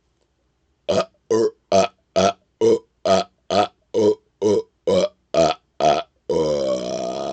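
A man burping on purpose: a rapid-fire run of twelve short burps, about two a second, then one long drawn-out burp starting near the end.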